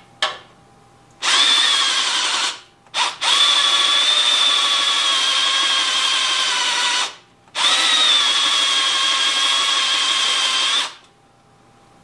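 Cordless drill with a 7/8-inch bit boring the latch hole into the edge of a wooden door board, its motor whining steadily under load. It runs in three main stretches of a few seconds each, with short stops and brief blips of the trigger between.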